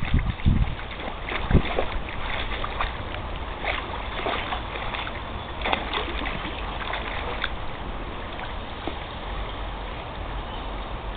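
A dog wading through a shallow brook, water splashing and sloshing around its legs in many small irregular splashes. Low wind rumble on the microphone in the first second or two.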